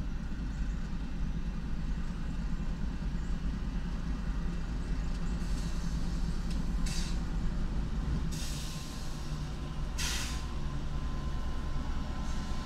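Norfolk Southern diesel locomotives at the head of an intermodal train, their engines rumbling steadily as the train comes in slowly to stop for a crew change. Three short bursts of air hiss from the brakes come from about halfway through.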